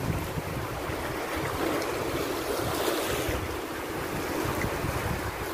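Small sea waves washing over a rocky shoreline, with wind buffeting the microphone.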